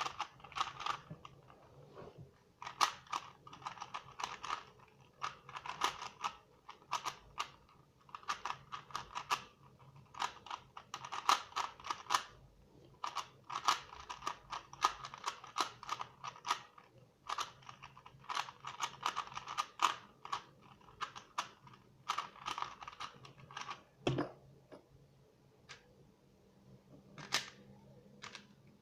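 Plastic Rubik's Cube layers being turned fast in a speedsolve: bursts of rapid clicking and clacking with short pauses between them. One duller thump a little before the end.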